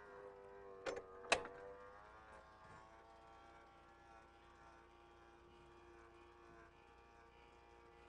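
Faint steady hum of the Tracker inside platform lift's electric motor as it carries the power chair on its platform into the vehicle, with two sharp clicks about a second in.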